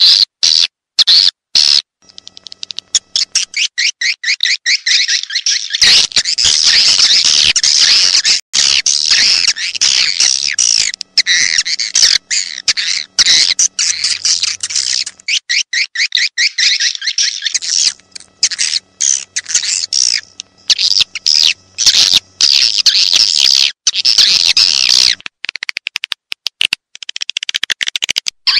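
Swiftlet calls from a lure recording for swiftlet houses: dense high-pitched chirping and twittering, broken by trains of rapid sharp clicks.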